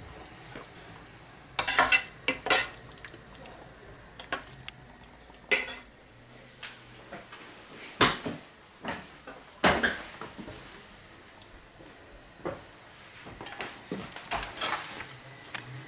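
Metal kitchenware clinking and knocking: utensils striking pots and dishes in scattered sharp knocks, a quick cluster about two seconds in, single knocks around six, eight and ten seconds, and a few more near the end, over a steady faint hiss.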